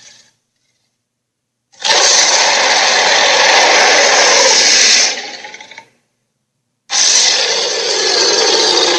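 Sharptooth, the tyrannosaur of The Land Before Time, roaring twice: a harsh roar of about four seconds, then after a second's pause a shorter one of about two and a half seconds.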